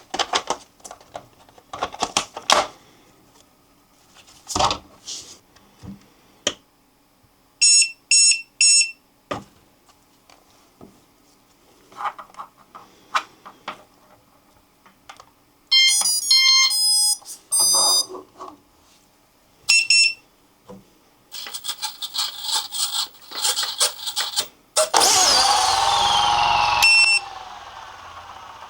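Electronic beeps from a toy-grade RC Era C138 Bell 206 RC helicopter and its transmitter as they power up, between handling clicks. Near the end the electric motor starts with a loud burst of gliding whine, then settles into a steadier, quieter running sound.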